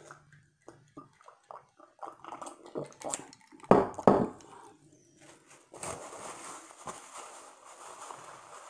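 Soft gulps and small mouth clicks while drinking from a glass, two loud sharp breath sounds about four seconds in, then a paper tissue rustling as a runny nose is wiped.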